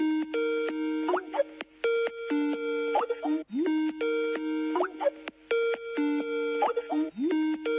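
Skype incoming-call ringtone: a short electronic phrase of two alternating tones with quick upward swoops, repeating over and over about every two seconds, signalling an incoming call.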